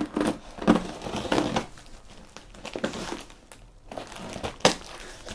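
Parcel packaging being handled and opened: irregular crinkling and crackling, with a sharp knock near the end.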